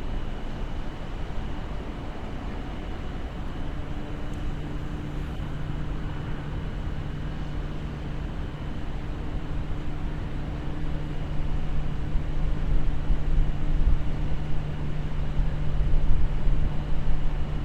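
City street ambience: a low traffic rumble that grows louder over the last few seconds, with a steady mechanical hum setting in a few seconds in.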